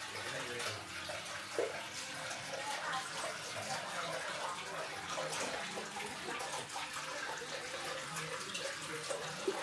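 Water trickling and running steadily in a shallow indoor pond channel over pebbles.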